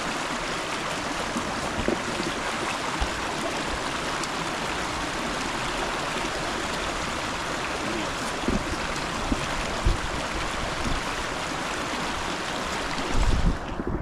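Steady rush of a fast-flowing upland stream, with a few short low thumps around the middle and a louder cluster of them near the end.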